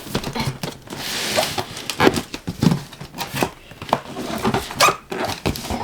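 Cardboard box and packing material being handled as a cutting machine is lifted out: irregular rustling with short knocks and clicks.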